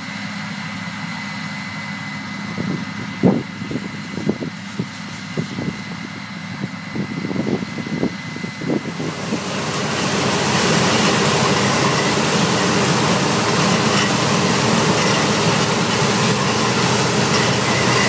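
Combine harvester running in a corn field. For the first half it is a steady engine hum with a high whine and a few short knocks. About halfway it turns to the louder, fuller running of a John Deere combine close by, cutting and threshing corn.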